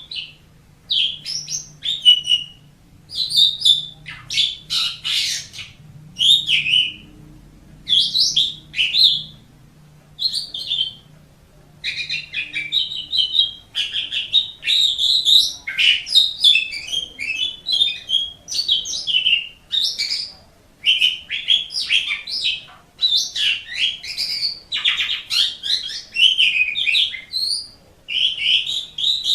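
Asian pied starling (jalak suren) singing: short whistled and chattering phrases with brief pauses between them, which about twelve seconds in run together into a near-continuous stream of chattering song.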